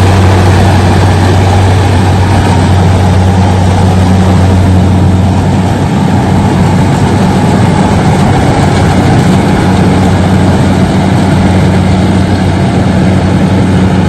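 Engine running steadily close by at a constant speed, with a loud, deep, even hum that does not change.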